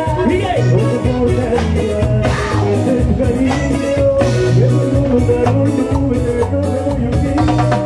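A live band playing an upbeat Latin dance number with a man singing lead, over keyboard, electric guitar, timbales and drum kit, to a steady repeating bass beat.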